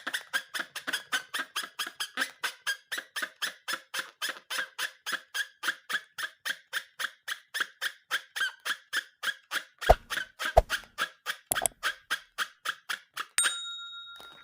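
Rubber balloon squeaking in a fast, even series of short squeaks, about four or five a second, as it is rubbed or squeezed. A few sharp knocks come about ten seconds in, and a click with a short ringing tone near the end.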